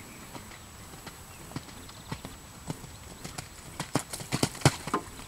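Hoofbeats of a horse cantering on a wet sand arena, faint at first and growing louder and sharper from about four seconds in as the horse comes closer.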